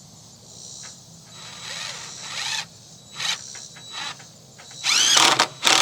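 Cordless impact driver driving long construction screws into wood: a few short bursts, then a loud run that spins up with a rising whine near the end.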